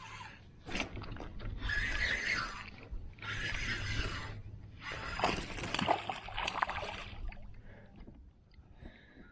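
Water sloshing and splashing around a kayak in three long bursts, with a few sharp knocks against the hull.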